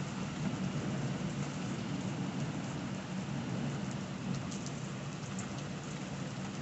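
Heavy downpour of rain falling on pavement, a steady, even sound.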